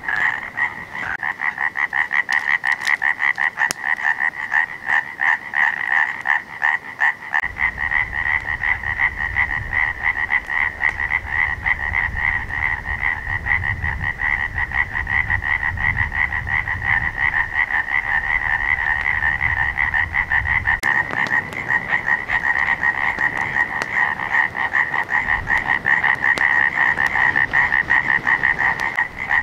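Dense chorus of frogs calling, many voices merging into a fast, unbroken pulsing trill. A low rumble runs underneath for a stretch in the middle.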